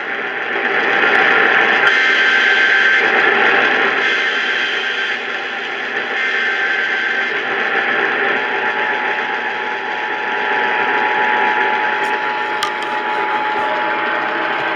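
Loud radio static, a steady hiss with no voice, with a faint steady tone coming in about halfway through.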